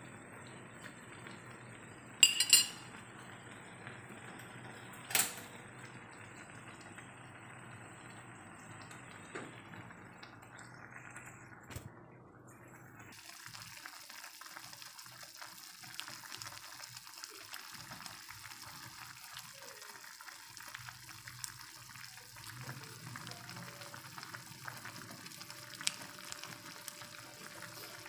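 Noodles and broccoli simmering in water in an aluminium pan, with a metal spoon clinking sharply against the pan a couple of times in the first few seconds. From about halfway through, the sound turns into a finer crackling bubbling.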